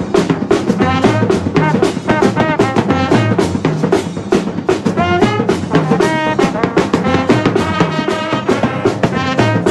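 Brass band playing an Afrobeats tune: the horns carry the melody over a steady drum beat, coming in strongly about a second in.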